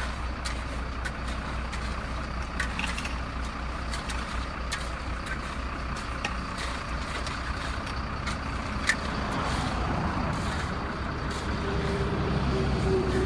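Dump truck engine running steadily at low speed while the truck pulls a truck-mounted hydraulic asphalt patching paver, with scattered light clicks and ticks. The sound grows a little louder and a steady tone comes in near the end.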